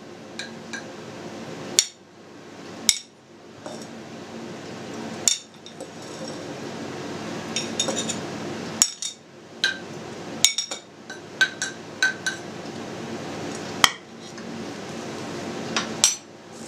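Metal spoon clinking and scraping against a ceramic plate and glazed clay pots as fried mushrooms are spooned in, in a dozen or so irregular sharp clinks over a steady low hum.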